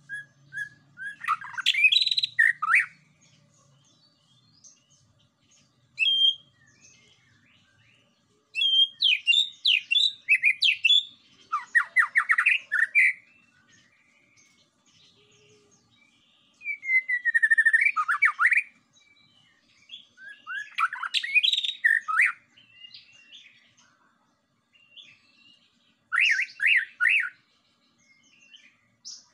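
White-rumped shama singing: bursts of varied whistles and fast trills, each phrase lasting a second or two, with short pauses between phrases.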